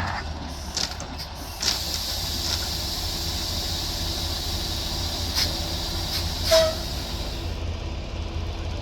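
Semi-truck's diesel engine running low as it backs under the flatbed trailer, with a steady hiss and a few sharp knocks, the loudest about six and a half seconds in.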